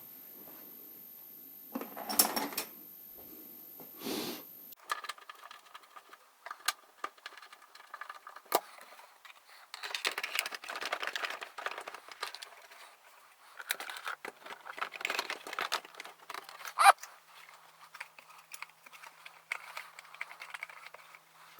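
Plastic trim and small metal parts being handled and forced into place: irregular clicks, light rattles and scraping as a car's center console is worked down over the gear shifter. One sharper click late on is the loudest sound.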